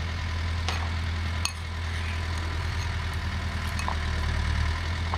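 Genie GTH-5519 telehandler's diesel engine running steadily at low revs, with a few sharp metallic clicks.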